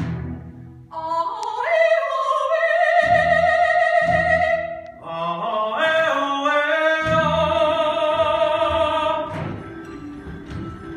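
A singer's long, held calls in a musical number: a note that slides up about a second in and is held for about three seconds, then a second long note held from about five seconds in until near nine, over musical accompaniment.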